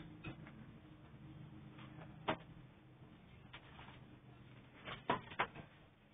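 Quiet room with a faint low hum and a few sharp knocks and clicks, the loudest pair close together about five seconds in.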